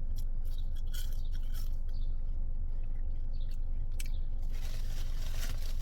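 A person chewing and eating KFC fries, with small irregular crunches and wet mouth sounds. A steady low hum runs underneath.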